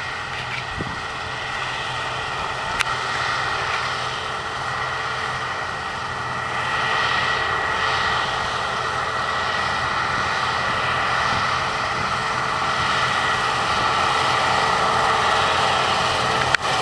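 Claas 770 combine harvester running steadily while harvesting barley: a continuous mechanical hum with a steady high whine, slowly growing louder as it approaches. A brief sharp break comes near the end.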